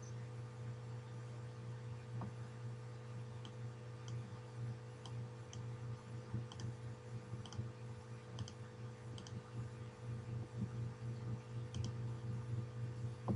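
Faint computer mouse clicks, about one a second, over a steady low electrical hum.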